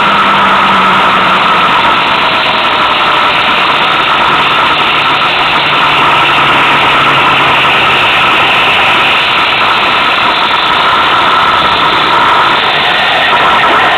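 Loud, steady engine and road noise from a vehicle driving along a road, with a faint low engine hum underneath.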